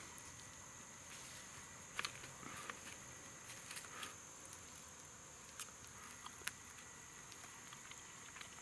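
Quiet background with a faint, steady high-pitched hum and a few soft clicks scattered through it.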